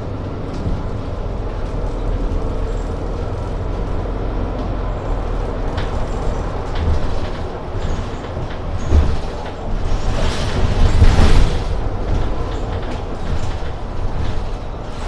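Mercedes-Benz city bus on the move, heard from inside: a steady low engine and road rumble. There is a knock about nine seconds in, and the noise swells louder for a second or so shortly after.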